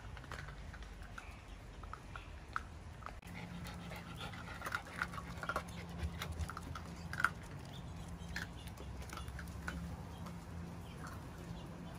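Miniature Schnauzer puppies eating dry kibble from a bowl: scattered crunches and clicks, busiest between about four and eight seconds in, over a steady low hum that comes in about three seconds in.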